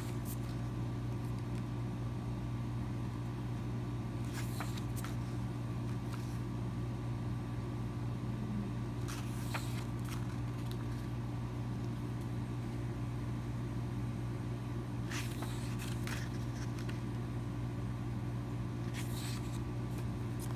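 A steady low mechanical hum, with a few short rustles, about four, spread through it.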